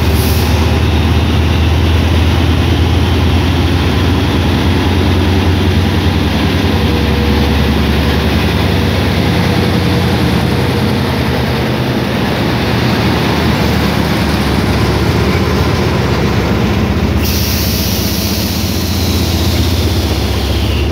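Hitachi diesel-electric locomotive 4505 running under power as it accelerates a passenger train away, passing close by with its engine's steady low hum, followed by the carriages rolling past on the rails. About three quarters through, a sharp hiss suddenly joins.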